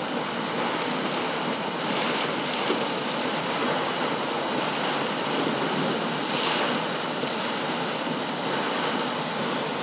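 Heavy rain and wind of a severe thunderstorm beating on a car, heard from inside the cabin as a steady rushing hiss that swells twice in gusts.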